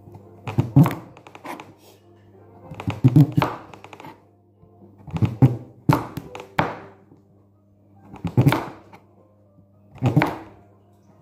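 Serrated kitchen knife chopping through pumpkin flesh and rind and knocking on a plastic cutting board, in short runs of strokes about every two seconds, with music playing underneath.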